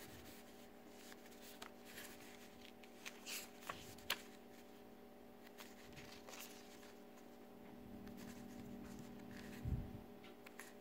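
Pages of a glossy CD booklet being turned by hand: faint, scattered paper rustles and soft flicks over a steady low hum.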